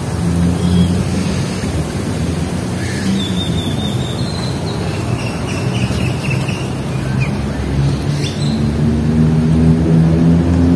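Steady low engine hum of nearby traffic, with small birds chirping several times through the middle.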